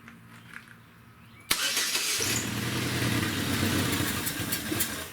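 2010 Chevy Equinox 2.4-litre Ecotec four-cylinder engine started about a second and a half in, running briefly with its air intake off and dying near the end. It will not stay running because the mass airflow sensor is still plugged in and reads no air coming through.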